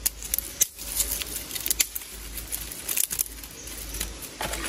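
Irregular light clicks and rustles of dry twigs and tinder being handled and packed into a fire pit before lighting.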